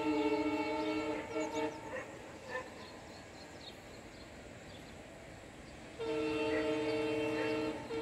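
Air horn of a WDP4B diesel locomotive sounding a chord of several tones: a long blast of about two seconds that breaks into short toots, then a second long blast from about six seconds in that ends in a couple of quick toots.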